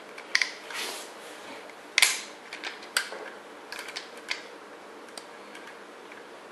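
Scattered light clicks, taps and rubbing as a serpentine belt and a wrench are worked around the alternator and pulleys while the belt is set and tensioned. The sharpest tap comes about two seconds in.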